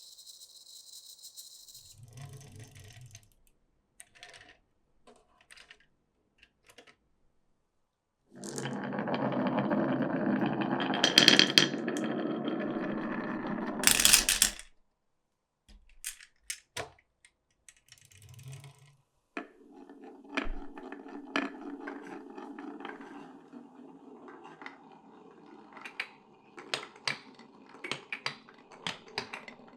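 Glass marbles rolling and clattering through a wooden marble run: scattered clicks, a long loud stretch of rolling from about eight seconds in that stops suddenly about fourteen seconds in, then steady rolling with rapid clicks over the last ten seconds.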